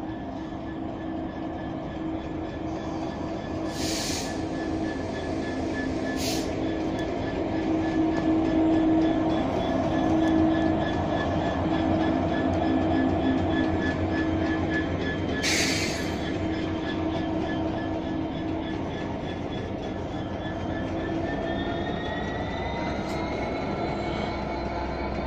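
Class 66 diesel locomotive's two-stroke V12 engine working hard as it hauls a freight train away from a stand, passing close by at low speed with a loud thrash. It is loudest about ten seconds in, with three short bursts of noise along the way and a whine rising in pitch near the end.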